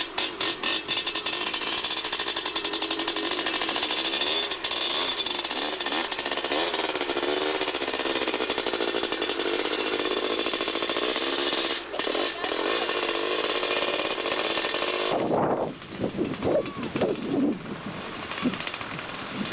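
Small engine running hard with a rapid, stuttering beat and a wavering pitch; it drops away about fifteen seconds in.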